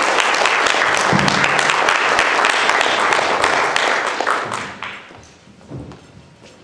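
Audience applauding, a dense patter of clapping that dies away about five seconds in.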